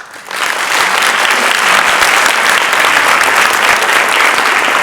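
Audience applauding, loud and steady, breaking out all at once.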